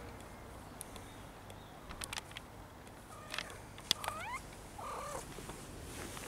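Maine Coon cat giving a short rising chirp a little after four seconds in, then a brief wavering trill, with a few sharp clicks in the seconds before.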